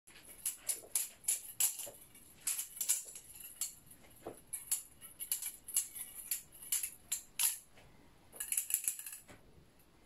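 Kershaw Lucha butterfly knife clicking and clattering as its steel handles swing around the blade and strike each other during twirls, in quick irregular clusters that stop about nine seconds in.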